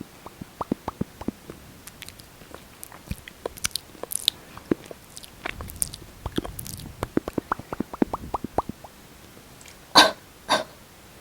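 Close-miked ASMR lip smacking: a run of small sticky clicks and smacks from lipsticked, glossed lips, with a soft rubbing stretch midway and two louder, longer smacks near the end.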